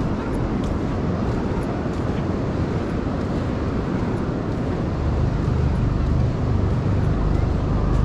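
Steady noise of beach ambience, distant surf and air, with a low rumble that grows louder about five seconds in.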